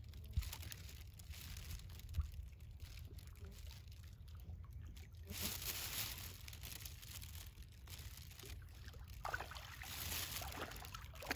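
A dog wading through shallow water, its legs sloshing and splashing, with louder splashing about five seconds in and again near the end.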